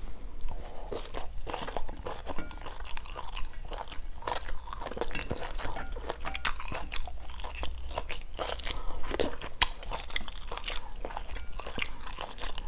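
A person chewing a mouthful of chewy chicken gizzard stir-fried with lemongrass and chili, close to a clip-on microphone: irregular crunching chews throughout.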